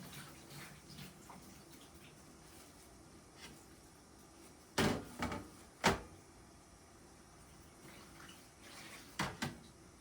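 Dishes being washed at a sink: faint water, with a few sharp clacks of dishes or utensils about five seconds in and two more near the end.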